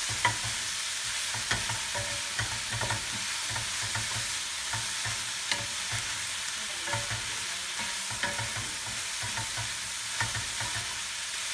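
Chicken and spices sizzling steadily in a hot wok as they are stir-fried, with scattered clicks and scrapes of the utensil against the pan.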